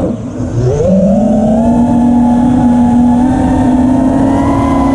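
The FPV quadcopter's four T-Motor F80 Pro 1900KV brushless motors on 6S, spinning Gemfan 5-inch props, heard from the onboard camera. The whine drops sharply in pitch as the throttle is chopped, then climbs back up about a second in as the throttle is pushed. It settles into a steady high-pitched whine that rises a little near the end.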